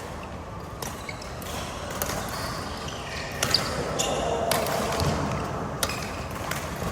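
Badminton rally: a string of sharp pops as rackets strike the shuttlecock, irregularly spaced, roughly one a second or faster.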